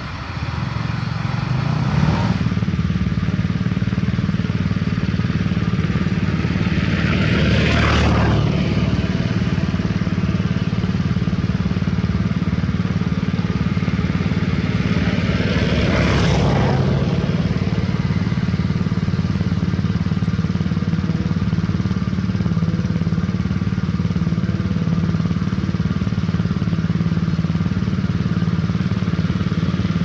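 Heavy diesel trucks running steadily, a low, even engine drone. Two vehicles pass close by, about a quarter of the way in and again about halfway, each rising and then falling away.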